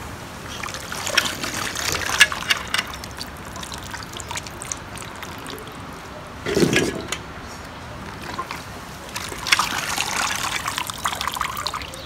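Water splashing and trickling in two bouts, from about a second in and again from near the end, with light clicks and knocks among it. The grapes are being handled in a basin of raisin-dipping solution. A short, duller thump comes a little past the middle.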